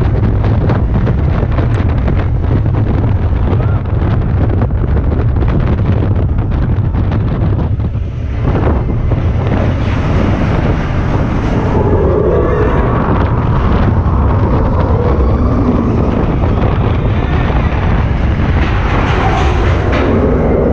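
Wind buffeting the camera microphone over the deep, steady rumble of the Expedition Everest coaster train, a Vekoma steel roller coaster, running at speed along its track. The noise dips briefly about eight seconds in, and from about twelve seconds a wavering mid-pitched sound joins it.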